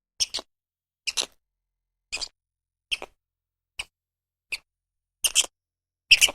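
A small animal's short, high squeaks, repeated about once every three-quarters of a second, some coming in quick pairs.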